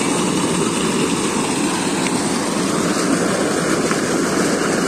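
Pumped water gushing from a large outlet pipe into a brimming tank: a steady, loud rush and splash.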